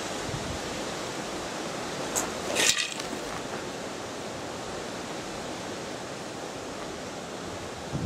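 Steady wind noise on the microphone, with a short dry rustle about two and a half seconds in.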